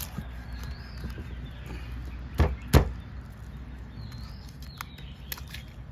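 Large knife chopping through a big snakehead fish on a wooden stump chopping block: two heavy chops about a third of a second apart a little over two seconds in, with a few lighter knocks of the blade before and after.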